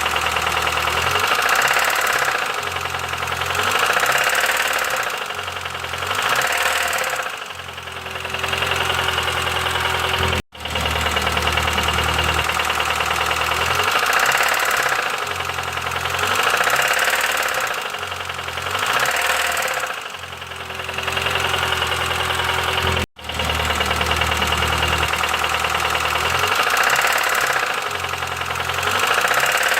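Petrol car engine running with a clattering knock, its speed rising and falling every second or two as it is revved. The same stretch of about twelve seconds plays over three times, cutting out abruptly twice.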